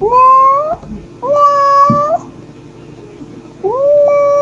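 Mother cat meowing, calling for her kittens. There are three calls, each rising at the start and then held level; the third starts near the end and is the longest.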